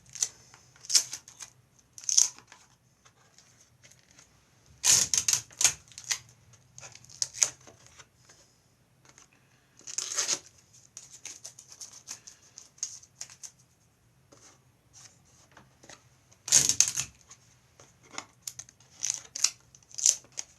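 Sellotape being peeled up and pressed back down on mylar spider legs: several short ripping sounds, the longest about five seconds apart, with light crinkling and small taps between.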